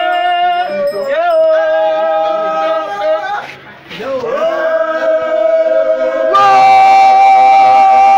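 A single voice singing long, high held notes close by, each note scooping up into pitch and then held steady; about two-thirds of the way through the voice steps up to a slightly higher, louder note and holds it.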